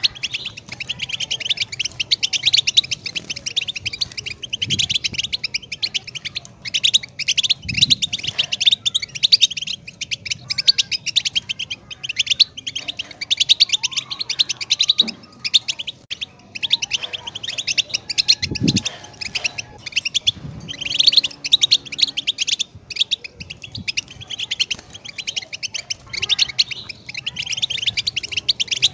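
European goldfinch singing: a long, fast, tinkling twitter of rapid high notes, broken only by brief pauses. A few faint low thumps sound underneath.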